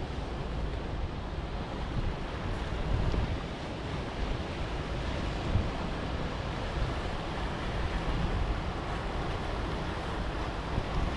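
Sea waves washing against a rocky shoreline in a steady wash, with wind buffeting the microphone and adding a low rumble.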